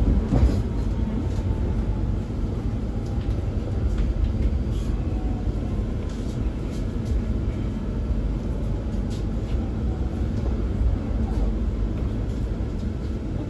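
Cabin running noise of a Pesa EN97 electric multiple unit on the move: a steady low rumble of wheels on the track, with scattered clicks.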